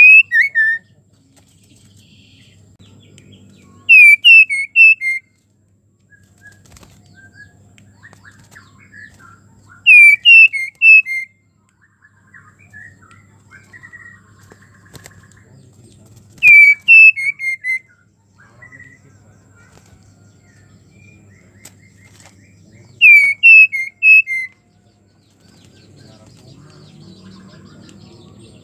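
White-rumped shama calling: five short, loud phrases of about four quick whistled notes, each phrase stepping down in pitch, repeated every four to seven seconds, with softer scattered notes in between. A faint low hum runs underneath.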